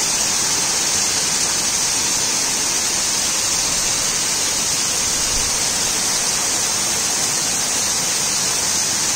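Heavy rain pouring down onto a wet street, a steady, even hiss.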